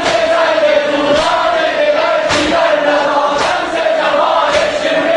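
A crowd chanting in unison on a held melodic line, with a sharp thud about once a second, four or five times in all.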